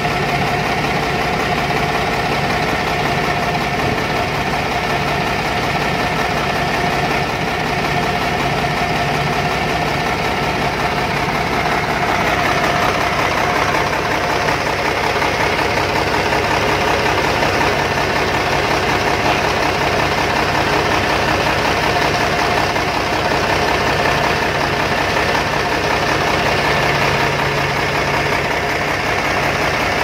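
Komatsu 705A motor grader's diesel engine running steadily at idle, belt-driving the freshly repaired AC compressor as it is charged with freon.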